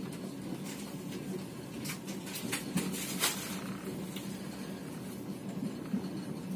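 Passenger train running, heard from inside the carriage: a steady low rumble with a constant hum, and a few sharp clicks about two to three seconds in.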